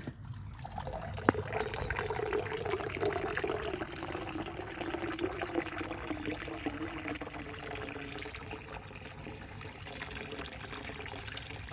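Water from a pond pump pouring and trickling into a DIY pond filter box as the box fills. There is one sharp click about a second in.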